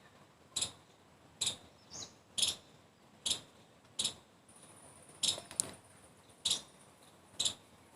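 Sharp, light clicks roughly once a second, with a couple closer together just past the middle, against near silence.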